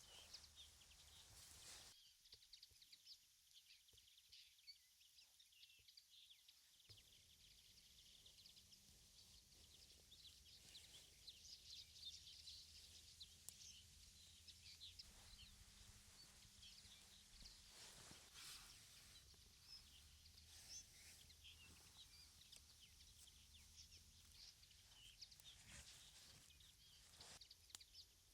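Faint outdoor ambience with small birds chirping on and off, many short high chirps, and a few soft clicks.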